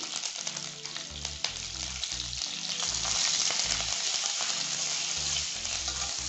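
Fresh curry leaves sizzling hard in hot oil with whole spices in a kadai, the sizzle starting suddenly as they go in and growing louder about three seconds in. A metal spatula stirring them ticks and scrapes against the pan now and then.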